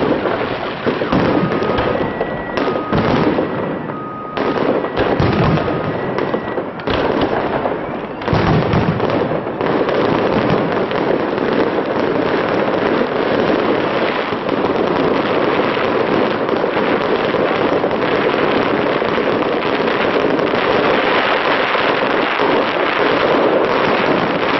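Fireworks salute: a rapid run of shells bursting with sharp bangs, which after about ten seconds merges into a dense, continuous crackle. A faint two-tone beeping sounds during the first few seconds.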